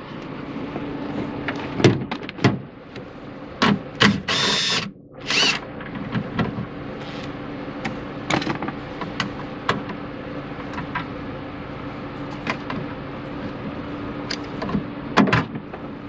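Tools removing the 10 mm fastener that holds a car's inner door handle to the door's sheet metal: scattered metallic clicks and knocks, with two short, louder whirring bursts about four and five seconds in.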